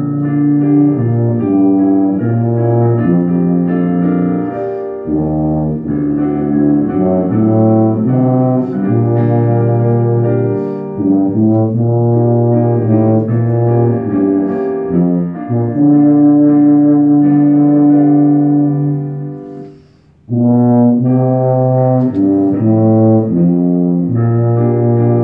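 Tuba playing a solo piece: a run of sustained low notes, with one long held note that ends in a brief break about twenty seconds in before the playing resumes.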